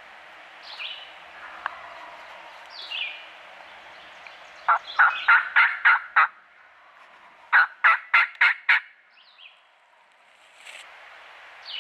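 Turkey yelping: two loud series of about six evenly spaced notes each, a couple of seconds apart. A few faint, short falling bird chirps come before and after.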